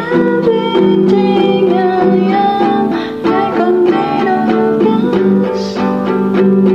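Guitalele, a small six-string nylon-strung guitar, played in chords under a woman's singing voice.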